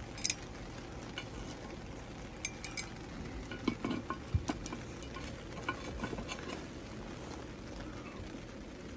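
Metal tongs and a lid lifter clinking and scraping against a cast iron Dutch oven lid loaded with hot charcoal briquettes. The sound is a scatter of light clicks and knocks, thickest in the middle of the stretch.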